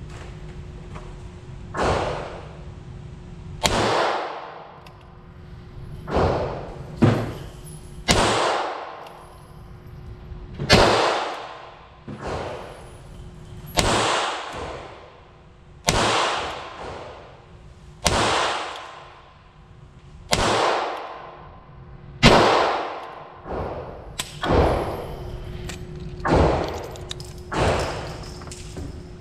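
Ruger LCRx revolver firing .22LR rounds one at a time, a shot about every two seconds, each crack ringing on in the echo of an indoor range. Smaller, closer-spaced knocks come in the last few seconds, with a faint steady hum underneath.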